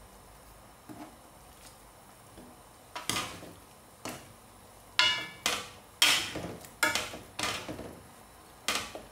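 Stainless steel ladle stirring soup in a stone-coated wok and knocking against the pan, a string of ringing metal clinks starting about three seconds in.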